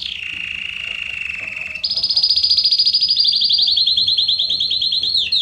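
Belgian canary singing: a steady low trill, then about two seconds in a louder, very fast high trill that steps down in pitch, then quickly repeated falling notes near the end.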